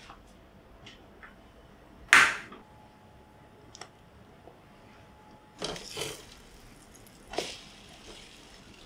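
Kitchen handling sounds at a portable gas stove. One loud sharp clack comes about two seconds in, then softer knocks and scrapes as a slice of egg-soaked bread is laid in a nonstick pan and moved with a plastic spatula.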